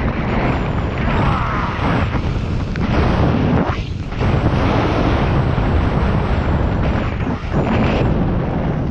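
Loud wind rushing and buffeting over a skier's camera microphone at speed, with skis running over snow; it drops briefly about four seconds in and again near the end.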